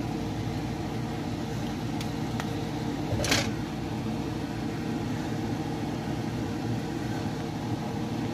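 Steady low machine hum, with a faint click about two seconds in and a brief clatter about three seconds in.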